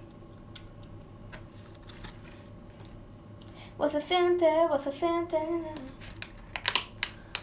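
A girl's voice singing a short melody with held notes for about two seconds in the middle, among scattered light clicks and handling sounds, with a few sharper clicks near the end.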